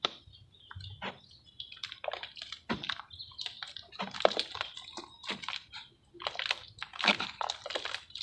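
Dried sand-and-cement shapes dipped in water, crumbling with irregular wet crackles, drips and small splashes.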